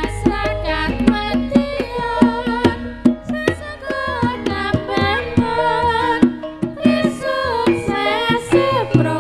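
Music with quick, busy drum beats under a wavering, bending melody line.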